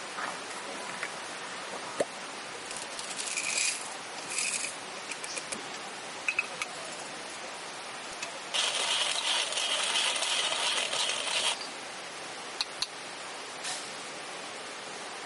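Small metal objects clinking and chinking several times, then a steady rushing noise for about three seconds, with a few more clicks near the end.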